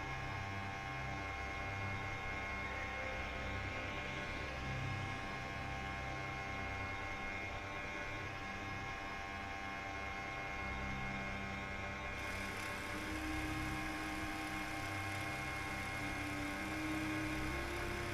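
Ambient background music of sustained synthesizer drones, with a low pulsing tone underneath and a new held note coming in about two-thirds of the way through.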